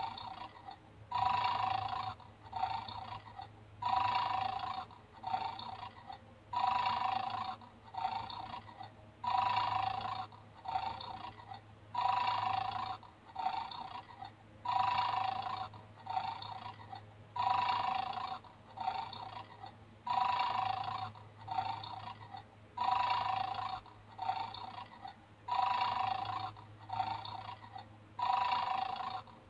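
Recorded snoring from a battery-powered bulldog toy game, looping evenly through its small speaker: a loud snore about every three seconds, each with a softer tail. This is the sound the toy plays while the dog is 'asleep'.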